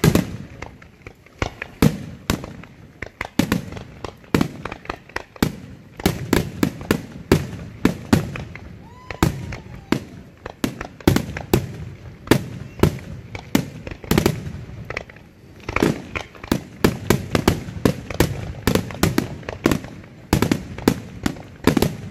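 Fireworks display: aerial shells bursting one after another in sharp bangs, sparser at first, then coming several a second from about six seconds in.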